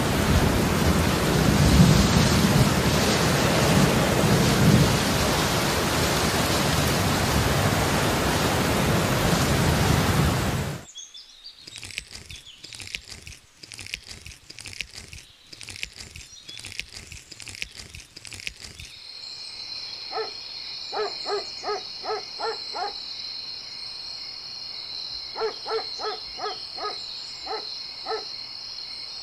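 Heavy rain with thunder rumbling through it, which cuts off sharply about eleven seconds in. Scattered drips follow. In the last ten seconds a steady high-pitched trill runs, with several runs of short, quickly repeated calls.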